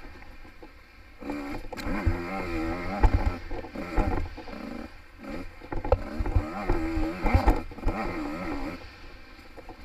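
Small-bore two-stroke enduro dirt bike's engine revving up and down as the throttle is opened and closed, easing off briefly several times. Short low thumps from the bike hitting bumps in the trail.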